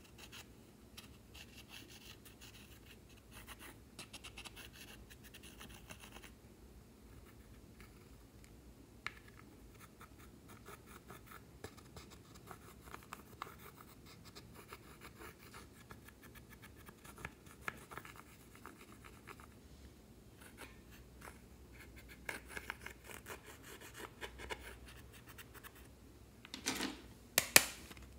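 Plastic spatula scraping pressed eyeshadow powder out of a palette's pans: a faint run of small scratching strokes. Near the end comes a quick run of louder sharp clicks and taps.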